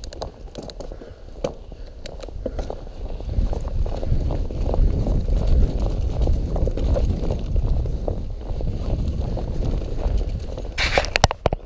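Enduro mountain bike rolling fast down a dirt trail, heard from a handlebar-mounted camera: a low rumble of tyres and wind on the microphone, growing louder about three seconds in, with frequent clicks and rattles from the bike over bumps. A brief harsh scraping burst comes near the end.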